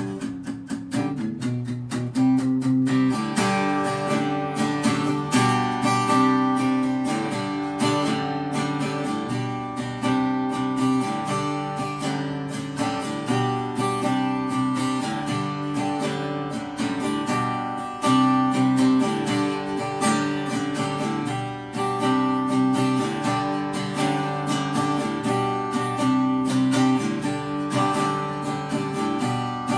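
Background music with a strummed guitar and a steady beat, filling out about three seconds in.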